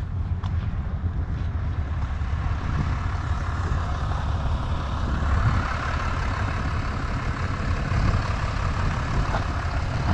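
A vehicle on the move: steady engine rumble and road noise, a little louder through the middle.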